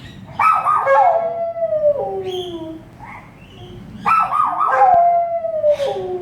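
A dog howling twice, each howl starting high and wavering, then sliding down in pitch over about two seconds.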